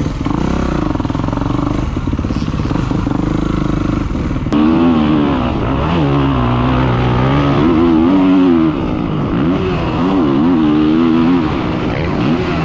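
Kawasaki KX450 SR dirt bike's four-stroke single-cylinder engine under way on a motocross track, its pitch rising and falling again and again as the throttle is worked. It gets louder suddenly about four and a half seconds in.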